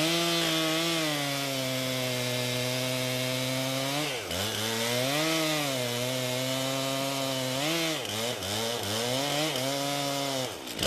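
Gas chainsaw running under load, cutting through a live oak trunk in the back cut that fells the tree. Its engine pitch dips and recovers several times from about four seconds in as the saw bogs in the cut.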